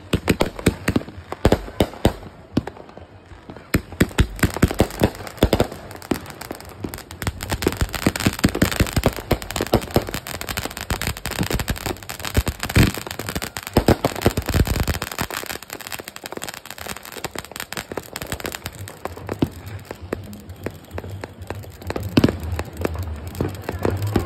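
Ground fountain firework spraying sparks, crackling with a dense run of sharp pops that thins out toward the end.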